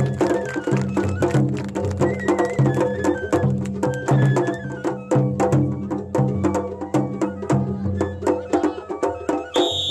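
Japanese festival ohayashi: a high bamboo-flute melody over fast, continuous drum strikes, played live at the festival floats.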